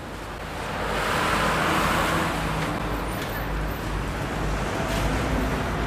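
Busy street traffic: car, bus and motorbike engines running and passing, with a steady wash of road noise that grows louder about a second in.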